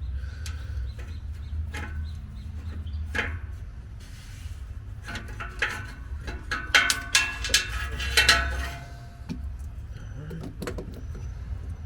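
Metal clanks, knocks and scrapes of a tool working the old oil filter loose on a 1965 Chevy C-30, busiest and loudest in the middle stretch, over a steady low hum.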